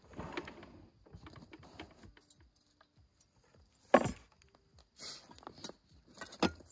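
Utensils and containers clattering as they are handled in a camp kitchen box, with a sharp knock about four seconds in as a tray is set down on the table.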